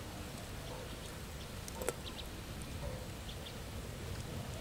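Outdoor ambience: a steady low rush of wind-like noise with a few faint, short bird chirps, and a single sharp click about two seconds in.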